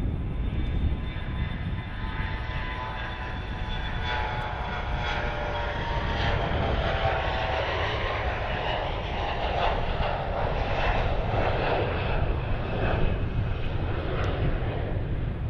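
Bombardier CRJ-900 regional jet taking off, its twin rear-mounted turbofans at takeoff thrust: a steady jet roar with a whine that grows fuller as the jet lifts off and climbs past.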